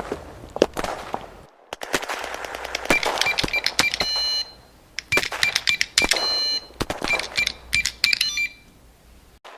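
Gunfire sound effects: several bursts of rapid automatic shots with short pauses between them, and a repeated high electronic beeping tone running through the later bursts.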